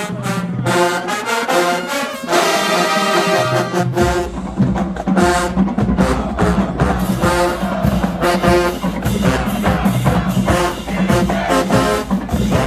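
HBCU-style marching band playing a dance mix: the brass section holds loud chords, then bass drums and the percussion line come in about four seconds in, under a driving rhythmic brass riff.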